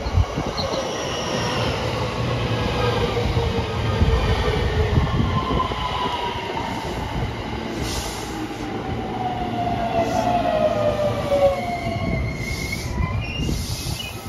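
JR West electric commuter train running past at close range while slowing, its motor whine gliding steadily down in pitch over a low rumble of the wheels on the rails. Short high squeals from the wheels or brakes come a few times in the second half.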